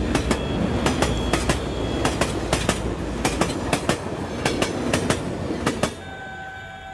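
Toy train cars rolling on plastic sectional track: the wheels click over the rail joints, mostly in quick pairs about twice a second, over a rattling rumble. The sound cuts off about six seconds in.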